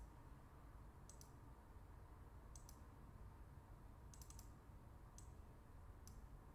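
Faint computer mouse clicks, each a quick double press-and-release, coming about once a second with a few close together about four seconds in, as points of a line are placed on a chart; otherwise near silence.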